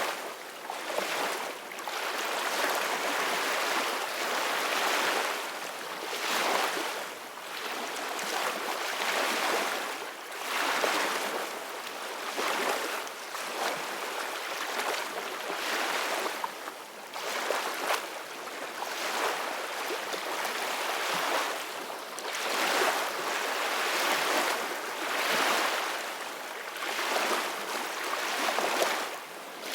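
Ocean waves washing onto a shore, a hiss of surf that swells and fades every few seconds.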